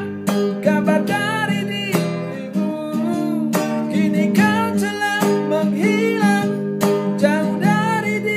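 A man singing a slow ballad in Indonesian while strumming an acoustic guitar.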